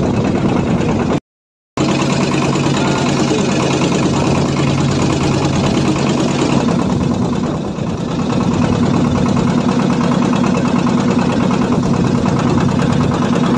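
A small wooden fishing boat's engine running steadily while the boat is under way. The sound drops out briefly about a second in, and the engine's tone changes about halfway through.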